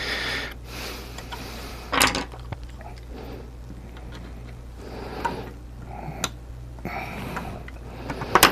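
Scattered knocks and short rustling or scraping noises of objects being handled on a workbench, over a steady low hum.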